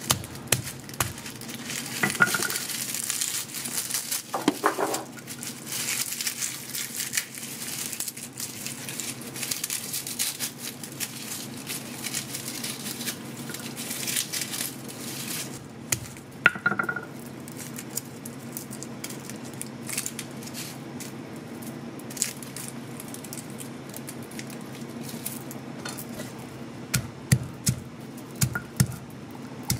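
Garlic bulb pulled apart by hand, its dry papery skins crinkling and rustling, then a run of dull knocks near the end as a stone crushes the garlic cloves on a board.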